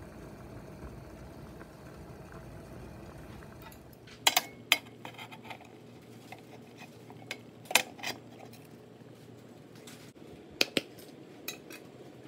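Metal-on-metal clinks and clanks as a round metal cake tin is gripped with pan-lifting tongs and lifted out of a stainless steel steamer pot: a pair of sharp knocks about four seconds in, another near eight seconds and two more near the end, over a low steady hum.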